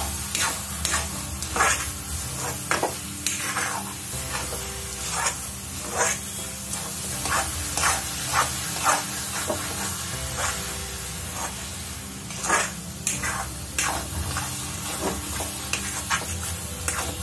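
Spatula scraping and stirring grated coconut and sugar in an aluminium kadhai: irregular quick scrapes, about two a second, over a steady hiss from the mixture cooking on a high flame.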